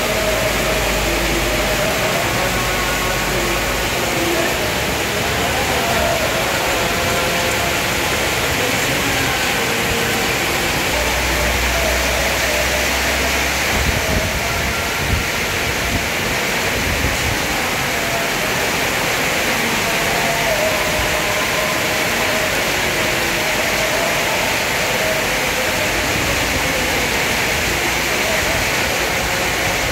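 Heavy rain pouring down in a steady, dense hiss, with faint voices in the background at times.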